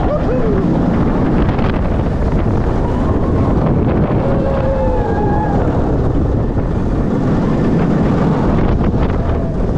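Wind rushing over the microphone as a B&M inverted roller coaster train runs at speed through its layout, a loud, steady rush. A faint wavering tone rises and falls a little past the middle.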